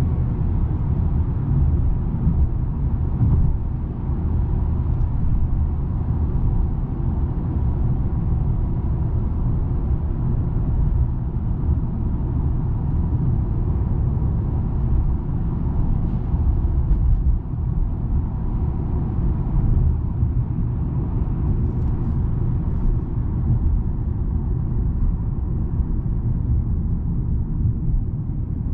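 Mercedes E350 sedan driving: a steady low rumble of engine and road noise, with no marked revving.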